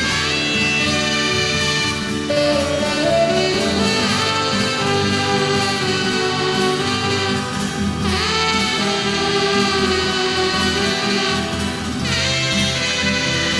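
A rock band playing an instrumental break between sung verses of the song: a lead melody line carried over steady band accompaniment, with no singing.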